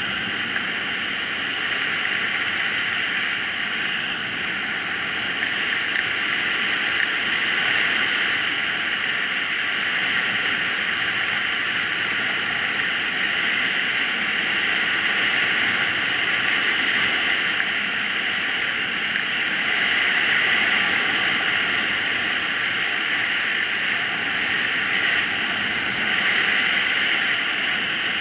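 Steady rush of air over a paraglider-mounted camera's microphone during a winch-towed climb: a constant hiss that swells slightly now and then.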